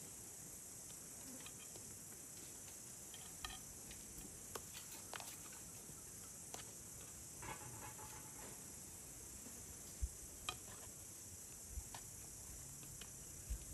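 Faint scattered clicks and light knocks over a steady high hiss, with a few soft low thumps about ten seconds in and near the end.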